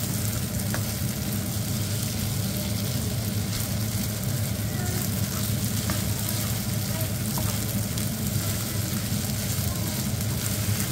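Fried rice sizzling steadily in a nonstick frying pan as a nylon slotted spatula stirs and turns it, with a few faint taps of the spatula on the pan. A steady low hum sits underneath.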